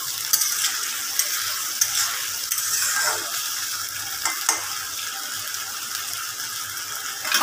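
Tomato-garlic paste with onions and dried red chillies sizzling and bubbling in mustard oil in a metal kadai, as a steady hiss. A few clicks of the stirring spoon against the pan come in the first half.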